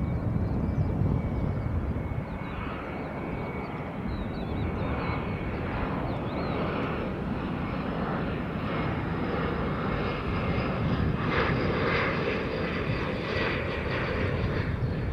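Twin turbofan engines of an Alitalia Embraer regional jet on final approach with its landing gear down: a steady jet rumble with a faint thin whine, growing somewhat louder from about eleven seconds in as the aircraft nears.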